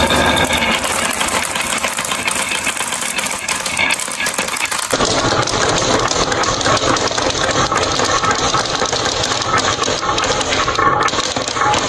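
Many glass marbles rolling together down a wooden wave-shaped marble track, making a continuous rumbling clatter of rolling and clicking. They knock into one another and drop into a plastic toy dump truck's bed. The sound gets fuller and deeper about five seconds in.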